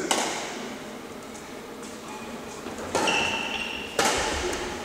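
Badminton racket strikes on a shuttlecock: three sharp hits, one at the start, one about three seconds in and one about four seconds in, each echoing around a large sports hall. A brief high squeak follows the second hit.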